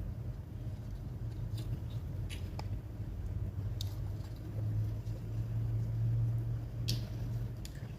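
Small scattered clicks and taps of laptop parts being handled during disassembly, about five of them, over a steady low hum that swells a little after the middle.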